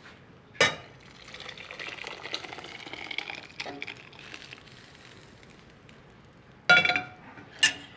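Thick puréed corn chowder pouring from a stainless steel saucepan over corn and potatoes in another pot, with a sharp metal clink about half a second in. Near the end, two loud, short ringing clanks of the stainless pans.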